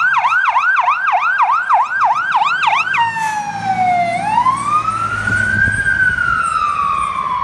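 Whelen electronic siren of a responding emergency vehicle in yelp, rapid sweeps about four a second, switching about three seconds in to wail, a slow rise and fall in pitch. A low engine rumble runs under the wail.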